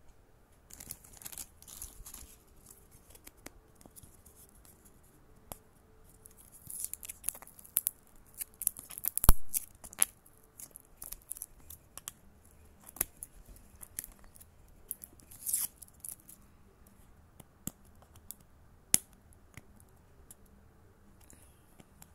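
Hands handling a plastic toy capsule and its wrapping: scattered sharp clicks and short crinkly rustles, the loudest a sharp click about nine seconds in.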